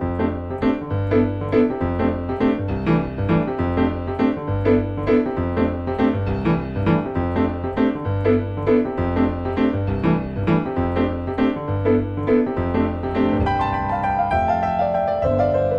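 Background music: piano playing a steady run of repeated notes over a regular bass, about three notes a second, moving to longer held notes near the end.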